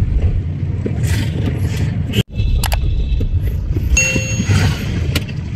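Road traffic rumble from a moving car, with two short high-pitched beeps of a horn or bell in the second half.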